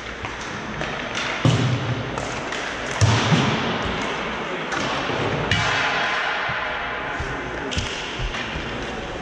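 Hockey rink noise: sharp knocks of pucks or sticks hitting the boards and ice, the loudest about three seconds in, over a steady din of the rink.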